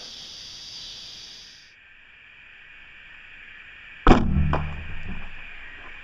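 A steady high insect chorus stops abruptly a bit under two seconds in. About four seconds in comes a sudden loud knock followed by about a second of low rumbling.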